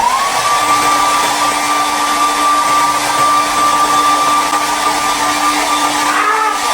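Hair dryer switched on, its motor whine rising over the first half second and then holding steady under a loud, even rush of blowing air.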